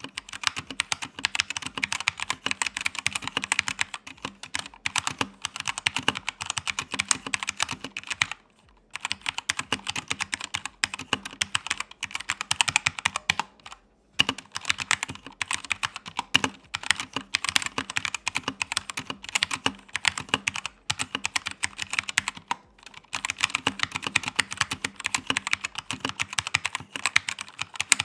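Fast, continuous typing on a Keychron K2 V2 mechanical keyboard fitted with tactile Gateron Brown switches: a steady clatter of keystrokes, stopping for a moment a few times.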